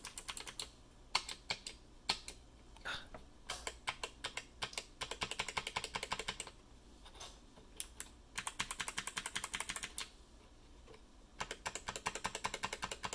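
Clicky mechanical keyboard switches being pressed: single sharp clicks at first, then fast runs of rapid clicking, three times, from about five seconds in.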